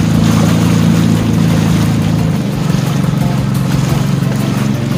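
Motorboat engine running steadily with the boat under way, a low even drone, with a hiss of water moving past.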